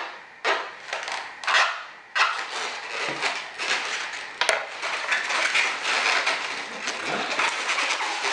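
A marker drawn on a latex modelling balloon in four short scratching strokes, then latex balloons rubbing against each other and the hands as the finished balloon sculpture is handled, with a single click about four and a half seconds in.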